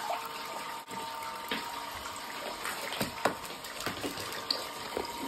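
Hot spring water running steadily into an open-air bath, with scattered drips and small splashes as the wet bath covers are lifted off the water.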